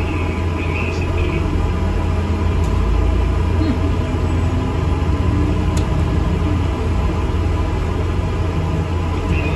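Alexander Dennis Enviro400 MMC double-decker bus heard from inside the cabin while under way: a steady low drone from the engine and running gear.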